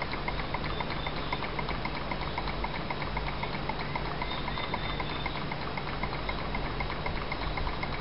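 Small model Stirling engine running steadily on the heat of a small lamp flame, its moving parts making a fast, even ticking over a steady hiss.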